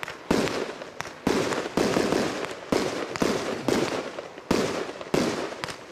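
100-shot fireworks cake firing shot after shot: sharp bangs about twice a second as tailed shells launch and break into peonies, each bang fading quickly.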